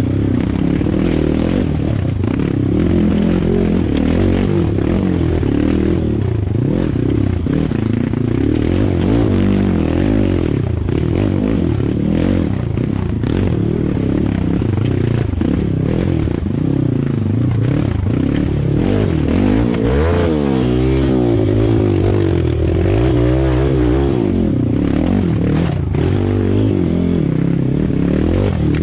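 Kawasaki KX dirt bike engine running close up, its revs repeatedly rising and falling as it is worked slowly over rough ground, with clatter and knocks from the bike jolting over ruts and roots.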